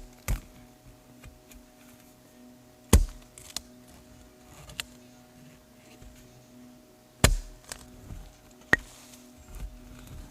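Shovel chopping into the ground to dig out a signal under a tree root: a handful of sharp strikes a few seconds apart, with smaller knocks and scrapes between them.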